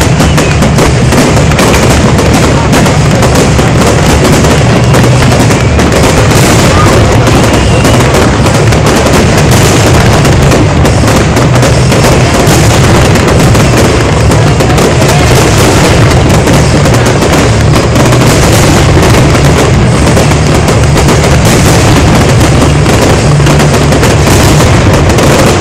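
Fireworks display in a dense, unbroken barrage: aerial shells bursting and crackling almost continuously, with no pause between bangs. Very loud throughout.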